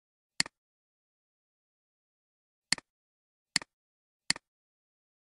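Four separate computer mouse clicks, each a quick press-and-release pair, spaced unevenly over the few seconds with silence in between.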